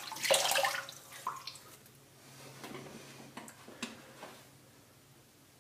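Water splashing at a bathroom sink as a face is wetted by hand, loudest in the first second, then fading to scattered drips and small splashes.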